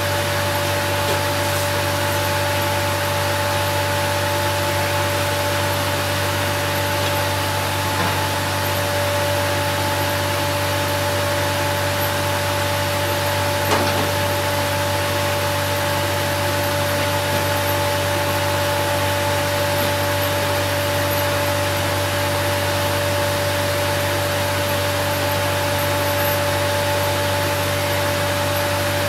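Band saw running steadily and cutting a green aspen log, with a constant low hum, a steady tone and an even hiss.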